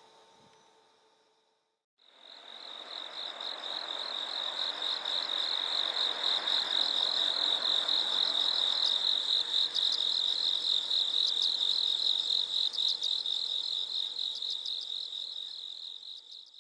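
Crickets trilling in a continuous high-pitched, finely pulsing chorus over a faint rushing background; it fades in about two seconds in and fades out just before the end.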